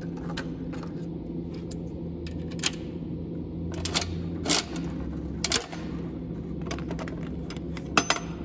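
Chrome knob of a coin-operated capsule toy vending machine being turned: several sharp metal clicks and clanks from the coin mechanism, two close together near the end, over a steady low hum.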